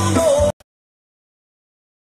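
Music with a singing voice played through a pair of stereo speakers driven by a mini Bluetooth amplifier, cut off suddenly about half a second in and followed by dead silence.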